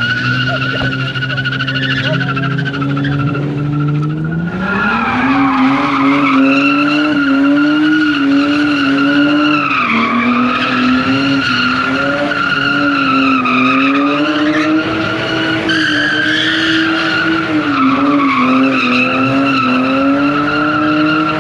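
Car engine held at high revs while its tyres squeal continuously, as a car spins donuts; the revs step up about four seconds in and sag briefly a few times.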